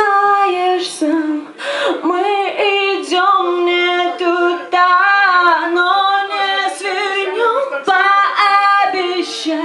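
Female vocalist singing live, drawn-out notes with bends and runs as the song closes, with little or no instrumental backing.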